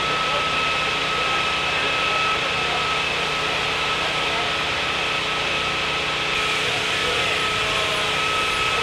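An engine running steadily at constant speed, with a high whine held at one pitch.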